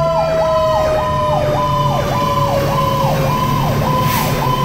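Fire engine's electronic siren in a fast yelp, its pitch rising and falling almost twice a second, heard from inside the cab of a 2010 Pierce Arrow XT pumper under way. Beneath it a second, steady siren tone slowly falls in pitch and fades out about three seconds in, over the truck's diesel engine drone.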